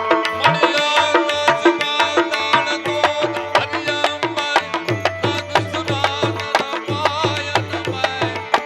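Instrumental folk music with fast tabla playing under a sustained melody instrument, and no singing. Deep drum strokes come forward about halfway through.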